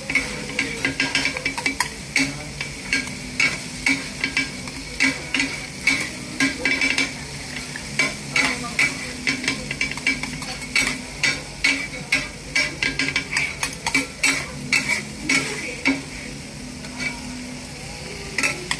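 Metal spatulas chopping and scraping a cabbage mixture on a hot steel griddle: quick, irregular clacks of metal on metal over a steady sizzle, with a low hum underneath.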